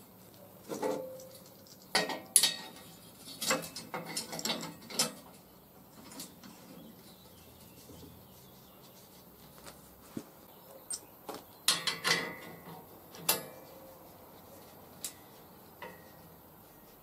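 Steel frame bars and metal clamps being handled, positioned and tightened on a wooden bench: irregular clinks and knocks, a few ringing briefly, in two busy spells with quieter stretches between.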